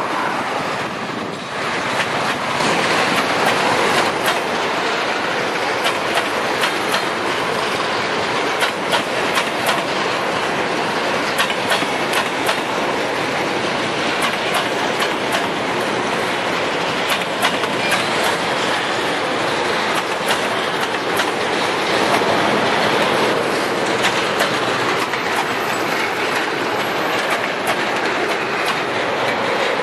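Long freight train of boxcars rolling past, steel wheels clattering over the rail joints in a steady, continuous run of clicks. It swells louder over the first couple of seconds, then holds steady.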